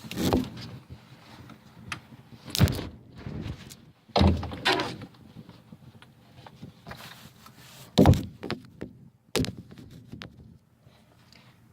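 A handful of separate thumps and knocks, about five, spread over the stretch with quieter shuffling and rustling between them.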